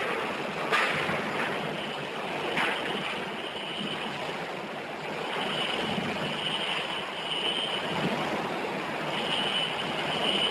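Hurricane-force wind blowing in hard gusts, a dense rushing noise that swells and eases, with a knock about a second in. A faint high whistling tone comes and goes in the second half.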